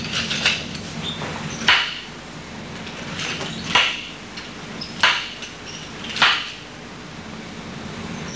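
Nunchaku strikes landing with sharp knocks, about five of them, one every second or two, some preceded by a short swish of the swing.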